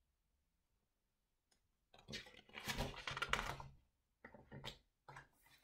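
Picture book being handled and its page turned, a burst of paper rustling and light clicks starting about two seconds in, then a few shorter rustles.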